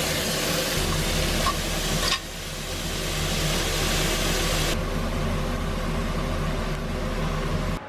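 Steady kitchen cooking noise: an even hiss over a low, fan-like hum, changing abruptly twice as the shot cuts.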